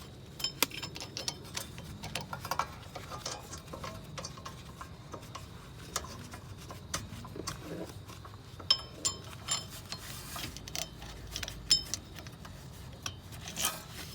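Irregular light clicks and ticks of metal parts and hand tools. A few sharper metallic clinks ring briefly, as the wheel hub assembly's mounting bolts are threaded in by hand.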